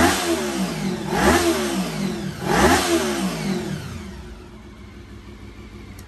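Carbureted multi-cylinder motorcycle engine blipped three times, about a second and a half apart, each rev rising and falling, then settling back to a quieter idle. With the airbox lid and air filter held in place it revs freely and pulls throttle cleanly, instead of running badly as it does with the lid off.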